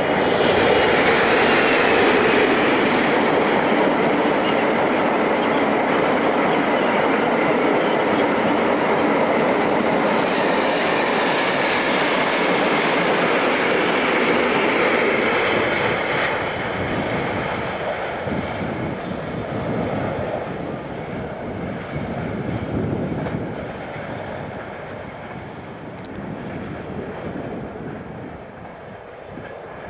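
A British Rail Class 56 diesel locomotive passes close by at the start, followed by a long train of open freight wagons rolling round a curve, with a steady clatter of wheels and high-pitched squealing of wheels against the rail. The sound fades gradually over the last half as the train draws away.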